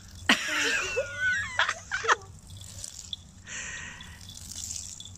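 Water from a garden hose splashing. In the first two seconds there is a sharp click and a wavering high-pitched cry, then a few short knocks; about three and a half seconds in there is a brief hiss of spray.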